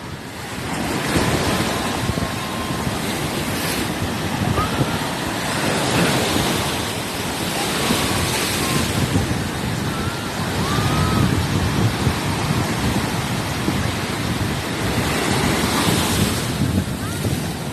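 Ocean surf breaking and washing in, swelling and easing every few seconds, with wind buffeting the microphone.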